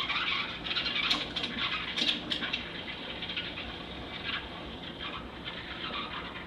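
Steam wand hissing and screeching as it steams a cup of milk, a harsh, uneven, sputtering noise, a terrible noise, that eases a little after the first couple of seconds.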